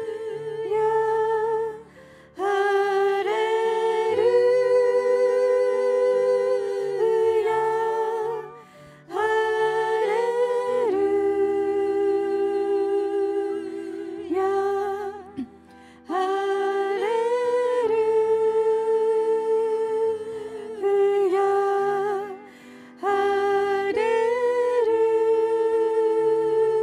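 Group of women singing a slow worship chorus of repeated "Hallelujah" in long held phrases with vibrato, over soft sustained keyboard chords. The singing breaks off briefly every six or seven seconds between phrases.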